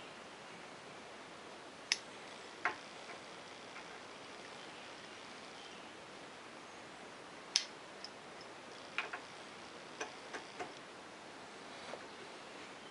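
Scattered sharp metallic clicks and light clinks, about ten in all and irregularly spaced, from hand tools and a tap being handled on an aluminium block in a bench vise. They sit over a steady faint hiss of room noise. The loudest clicks come about two seconds in and about halfway through, and a cluster follows near the end.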